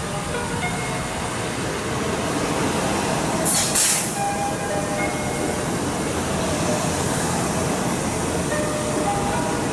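JR West 227 series 'Red Wing' electric train pulling into the platform and rolling past at slowing speed, its wheels and motors making a steady rumble with faint whines. A short, sharp hiss comes about three and a half seconds in.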